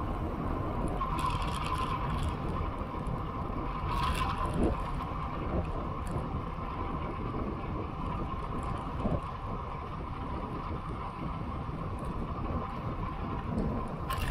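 Wind rushing over a bicycle-mounted camera's microphone with the steady roar of tyres rolling on asphalt during a road ride. A sharp knock near the end as the camera jolts.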